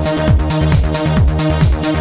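Electronic trance music with a steady kick-drum beat, about two beats a second, under sustained synth tones.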